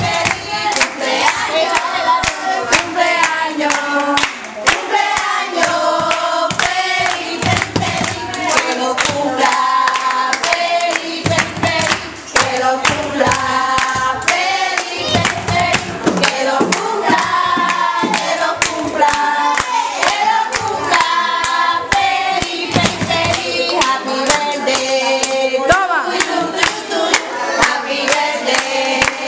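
A group of girls singing a song together while clapping their hands in a steady, quick beat.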